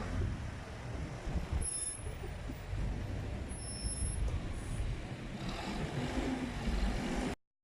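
City street traffic: a heavy vehicle running with a steady low rumble, with two brief high-pitched squeals about two and four seconds in.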